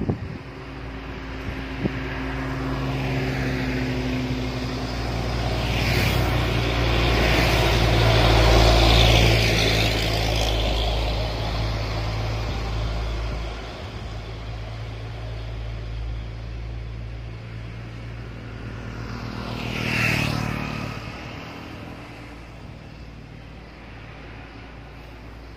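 Road traffic passing close by: a light truck and a minibus drive past with engine rumble and tyre noise that builds to a peak about eight to ten seconds in and then fades. Another vehicle passes quickly about twenty seconds in.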